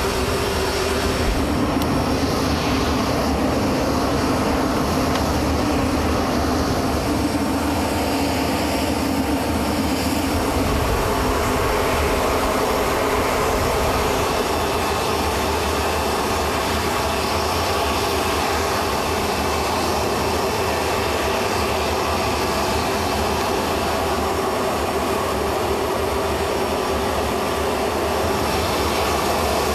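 Aircraft turbine engine running steadily: a constant drone with a faint steady whine.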